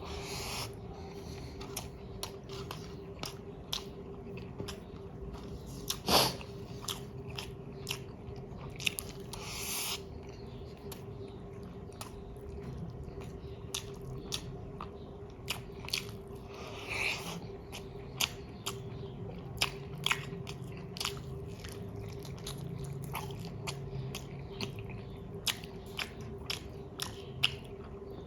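Close-up eating sounds: a person chewing mouthfuls of chicken biryani, with many small wet clicks of lips and teeth. A sharper click about 6 seconds in is the loudest, and a faint steady hum runs underneath.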